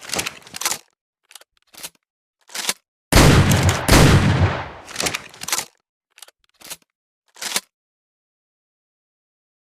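Double-barrel shotgun: a few short metallic clicks of the gun being handled, then a loud blast about three seconds in and a second under a second later, ringing out over about two seconds. More clicks follow.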